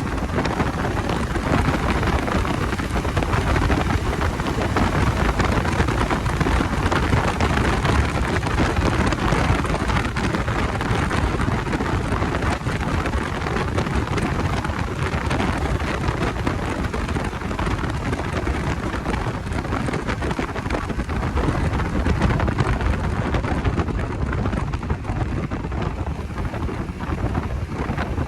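Steady rush of wind buffeting the microphone while a Bajaj Dominar 250 motorcycle is being ridden.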